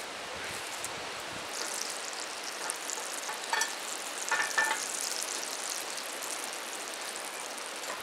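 Butter sizzling as it melts and foams in a cast-iron skillet over a campfire, a steady hiss with a few short crackles around the middle.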